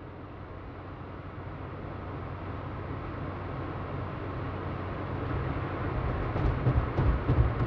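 Steady road and engine rumble of a car in motion, heard inside the cabin, growing gradually louder, with a few heavier low thumps near the end.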